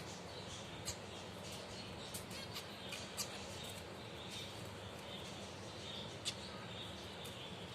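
Finches chirping: a few short, sharp, high chirps scattered at irregular moments over a steady background hiss.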